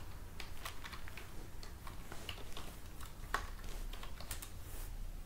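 Typing on a computer keyboard: irregular, scattered keystroke clicks over a steady low hum.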